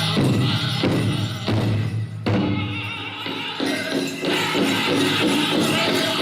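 A song performed live by a group of young men, voices with instrumental accompaniment.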